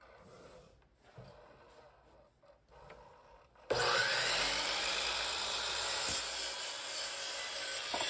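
Faint knocks of wood being handled, then, a little before halfway, a saw suddenly starts cutting through wood with a loud, continuous sawing noise.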